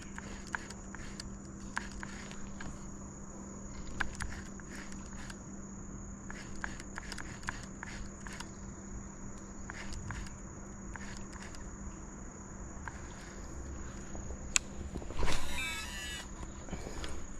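Footsteps crunching along a creek bank, with a steady high insect drone behind them and a brief louder rustling burst about fifteen seconds in.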